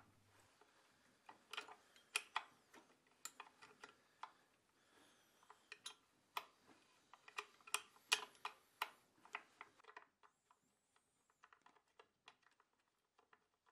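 Scattered light metallic clicks and taps from a wrench and fingers working the bolts of a Kohler K-series breakerless ignition trigger module, spaced irregularly and stopping about ten seconds in.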